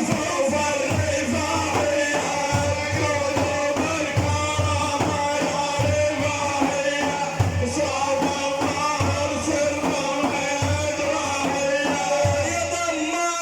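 Music with a steady low drum beat under sustained melodic lines.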